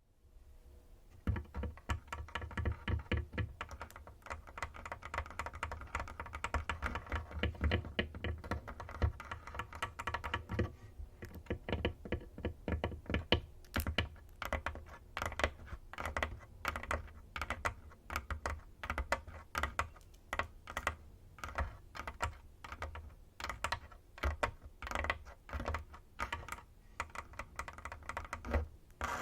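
Long fingernails tapping: fast, dense clicking for the first ten seconds or so, then slower, separate taps.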